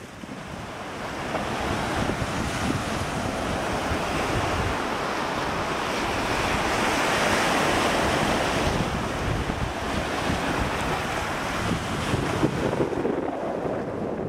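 Surf breaking on a sandy beach, a steady wash that swells to its loudest about halfway through, with wind buffeting the microphone.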